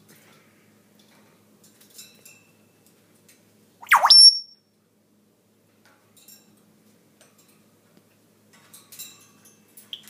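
Caged grey parrot giving one loud, short call about four seconds in: a quick upward sweep that ends in a high whistle. Soft clicks and faint chirps sound around it.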